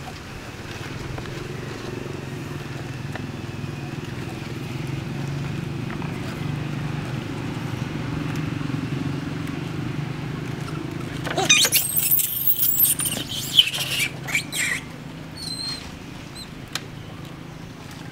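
Young long-tailed macaque shrieking and squealing in a string of sharp high-pitched cries for about three seconds past the middle, with a few fainter squeaks after. Under it runs a low droning hum that swells over the first half, like a distant engine.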